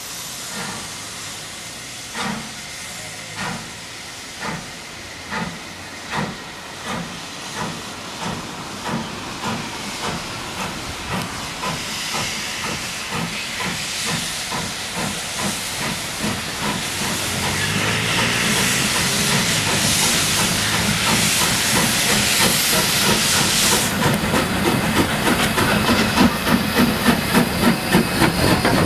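Two steam locomotives, Lambton Colliery No. 29 leading Caledonian Railway No. 419, pulling away with a train. Their exhaust beats start at about one a second and steadily quicken. A loud hiss of steam from the cylinders builds as they approach, stops suddenly, and the beats grow loud and rapid as the engines pass close by.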